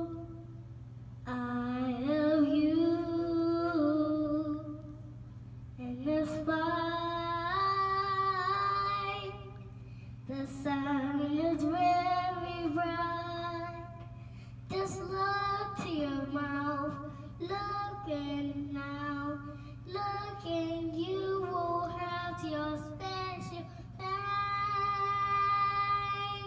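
A child singing into a microphone through a small light-up karaoke speaker, in phrases of held and gliding notes with short pauses between. A low steady hum sits under the voice throughout.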